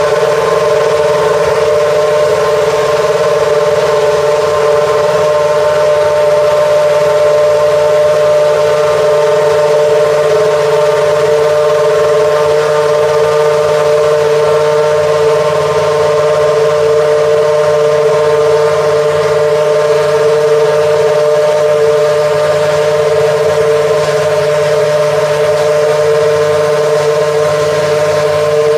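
Cosworth 2.4-litre V8 of a T127 Formula One car running at a steady fast idle while it warms up: a loud, even engine note with no revving.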